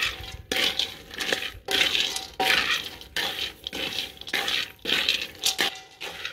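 Almonds, cashews and pistachios being roasted and stirred with a wooden spatula in a metal karahi: the nuts rattle and scrape against the pan in regular strokes, about three every two seconds.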